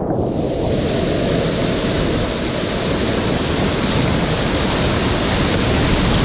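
Whitewater rapids of a river running at about 640 cfs, rushing and crashing around a kayak as it runs them. The sound is loud and steady, with a little more spray-like hiss from just after the start.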